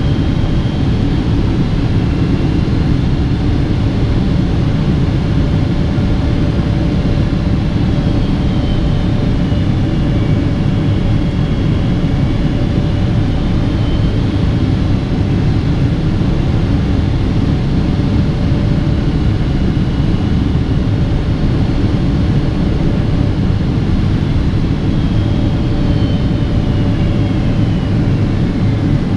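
Boeing 777-200ER cabin noise at a window seat beside its Pratt & Whitney PW4090 engine during descent: a steady, loud low rumble of engine and airflow. A faint high whine dips and rises in pitch twice.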